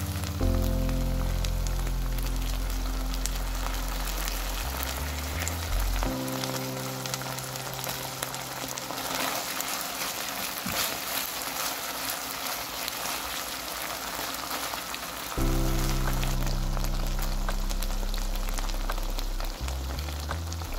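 Ketchup-based chilli sauce sizzling and crackling in a hot pan as it is stirred, with fine spits throughout. Background music with long, steady bass notes plays over it, dropping out for several seconds in the middle.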